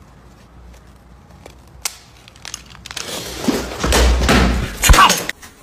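A foot moving and stamping on a wooden floor: shuffling and thuds that build up in the second half, ending in one sharp thump near the end.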